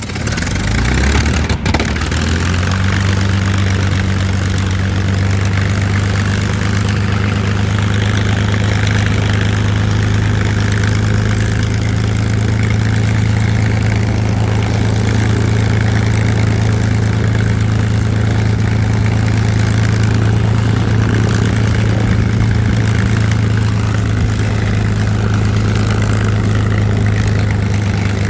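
P-51D Mustang's Packard-built Merlin V-12 engine catching on start-up, its pitch rising over the first couple of seconds, then settling into a steady, loud idle.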